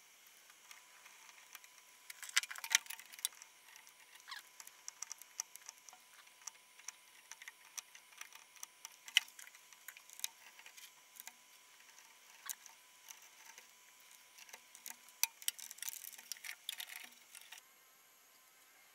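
Irregular small clicks, taps and rustles of hands handling electrical wires and pushing them into plastic plug-in terminal connectors, stopping shortly before the end.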